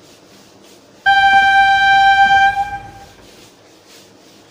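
Train horn sounding one loud, steady blast about a second in, holding a single pitch over a low rumble for about a second and a half before it fades away.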